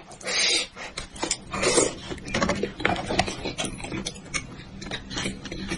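Close-up wet, sticky tearing and squelching as oily fingers pull strips of spicy braised meat off a sheep or goat head, with many small clicks and two louder tearing bursts.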